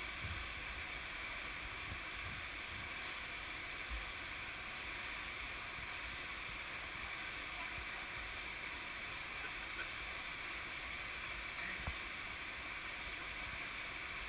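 Steady, fairly faint rushing of a small waterfall pouring into a canyon pool, with a couple of soft knocks.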